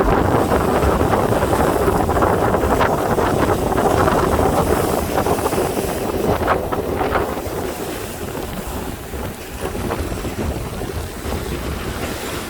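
Strong wind buffeting the microphone in a steady rush, with choppy sea water sloshing underneath; it eases a little about halfway through.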